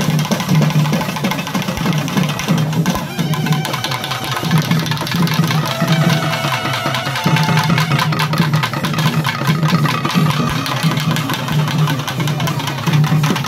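Live festival band music: drums beating a steady rhythm under a droning low pulse, with a trumpet playing held notes partway through.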